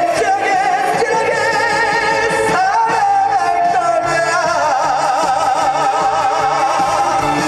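A male singer holds long notes with a wide vibrato over a live band's accompaniment.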